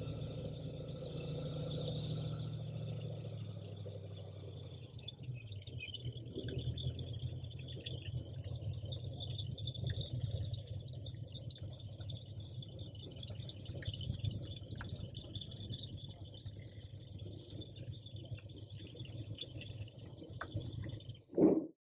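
A distant airboat's engine and propeller drone, easing off about four seconds in as the boat swings into its dock. After that a steady low rumble and a steady high buzz go on. Just before the end there is a brief loud burst.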